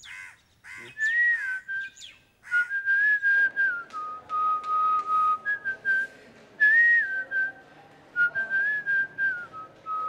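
A person whistling a slow tune: one pure note that holds, glides and steps between pitches, starting about a second in.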